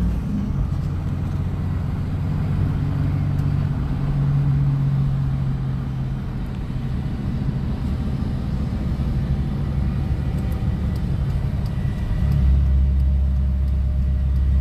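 Engine of farm equipment running steadily under way, a low drone that deepens and grows louder about twelve seconds in.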